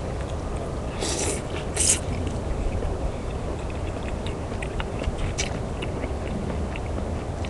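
Someone eating ramen noodles: two short slurps about one and two seconds in, then soft chewing noises and a few small clicks over a steady low hum.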